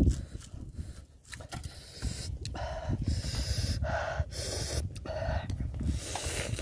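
Heavy panting breaths and open-mouth chewing of a crunchy herb and fried-shallot leaf wrap, the breaths coming in a steady run of bursts from a little over two seconds in. A brief thump right at the start.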